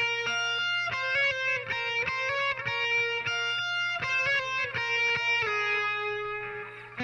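Electric guitar played through a Marshall MG30CFX solid-state amp on its overdrive channel with the delay effect on. Single notes are picked in a quick melodic run, then a held note fades out near the end. A steady low hum runs underneath.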